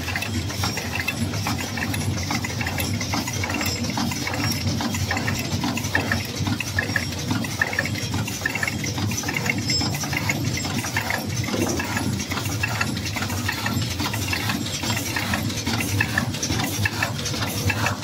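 Small automatic sachet packing machines for 0.5 g to 1 g salt or desiccant bags running together: a steady mechanical clatter of many quick clicks and rattles.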